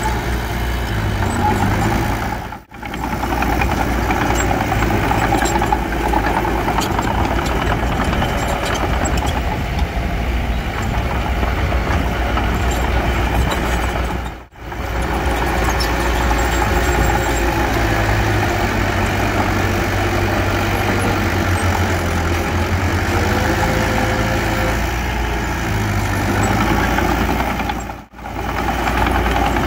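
Mini bulldozer's diesel engine running steadily while working soil, the sound dropping out briefly three times.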